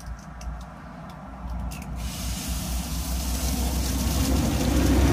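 A knife tapping an eggshell a few times, then the egg dropping into hot fat in a frying pan and sizzling, the sizzle growing louder.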